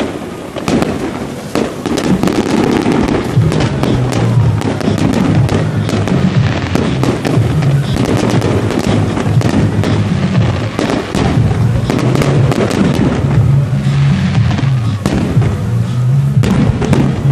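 Fireworks display: a rapid, continuous run of bangs and crackling bursts, with music playing underneath.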